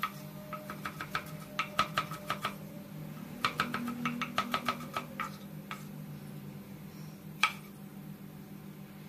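Kitchen knife chopping tomato on a cutting board: two quick runs of sharp taps, about five a second, in the first half, then a few single taps, the loudest near the end. A steady low hum runs underneath.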